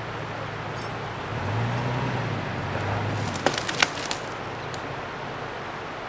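Toyota Tacoma pickup's engine running at low speed as the truck creeps forward, swelling for a couple of seconds about one and a half seconds in. A quick cluster of sharp clicks and knocks comes about three and a half seconds in.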